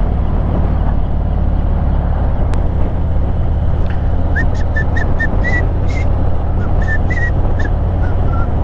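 Motorcycle riding at road speed: a steady low engine rumble mixed with wind noise. From about four seconds in, a run of short, high chirps sounds over it.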